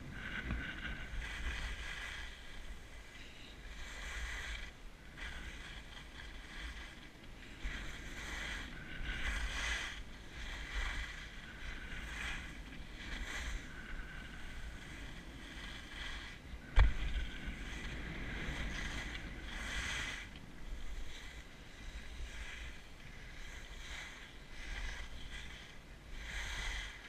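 Skis hissing and scraping over packed snow in repeated swishes as the skier turns, with wind rumbling on the camera microphone. One sharp knock about two-thirds of the way through.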